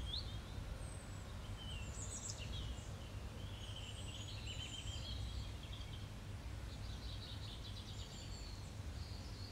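Small birds chirping and trilling, with short high calls scattered throughout and a busier run of trills in the middle and again near the end, over a low steady hum.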